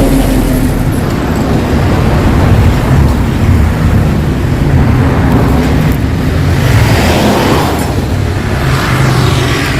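Yamaha RX-King two-stroke single-cylinder motorcycle engine running through a hollowed-out (baffles removed) exhaust. It is revved up twice in the second half.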